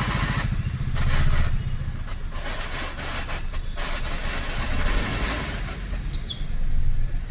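Maruti Wagon R K-Series engine running just after start, with a steady rattling from the transmission underneath. The mechanic traces the rattle to inside the gearbox.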